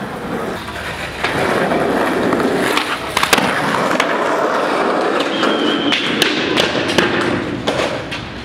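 Skateboard wheels rolling over rough concrete, with a sharp clack of the board about three seconds in and a run of clacks between about six and seven seconds in.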